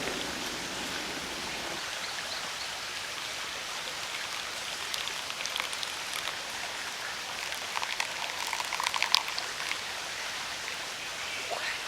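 Steady rushing hiss of a mountain stream, with a short cluster of small sharp taps and clicks about eight to nine seconds in.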